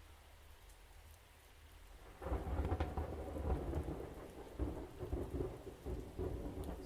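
Thunderstorm with rain falling steadily. About two seconds in, a loud clap of thunder breaks and rolls on in rumbling, crackling swells.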